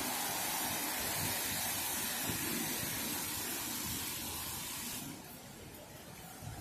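Steady hiss of rain on a wet city street, mixed with tyres on the wet road, which drops off noticeably about five seconds in.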